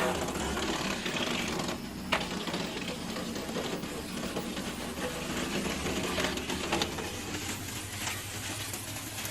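Wood chipper running, a steady engine hum under a rapid mechanical clatter, with a few sharp cracks as wood is chipped.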